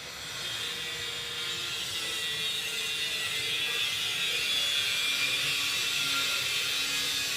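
A small power tool working wood: a steady, high whirring hiss that cuts off suddenly at the end.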